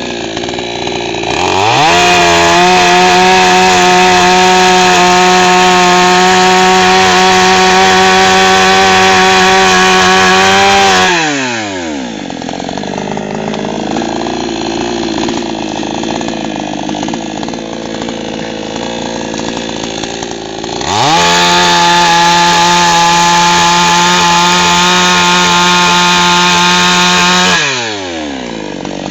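SOLAX 5900 55cc two-stroke chainsaw idling, then revved up to high speed twice: it holds steady at full revs for about nine seconds, drops back to idle, revs up again for about six seconds, and falls back to idle near the end.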